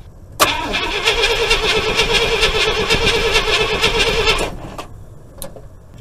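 Starter cranking the International Harvester 345 V8 for about four seconds with an even pulsing beat, stopping without the engine catching: there is no spark from the ignition coil. The cranking is a little slow because the battery is run down.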